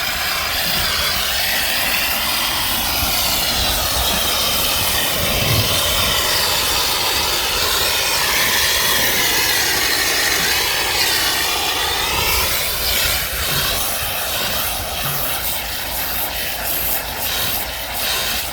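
Hot-water pressure washer's surface cleaner running over concrete pool decking: a steady, loud hiss of spray with a whirring tone that wavers up and down, turning choppier near the end.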